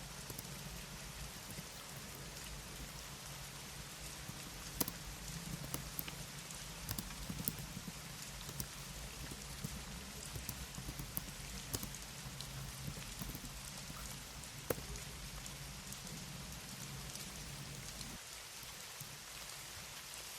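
Steady rain ambience with scattered soft clicks of keyboard keys being typed. A low hum underneath stops near the end.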